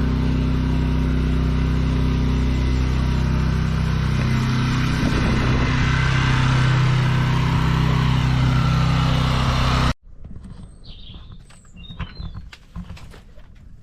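Pressure washer's engine running steadily while its water jet hisses against paving slabs. The sound cuts off abruptly about ten seconds in, leaving birds chirping.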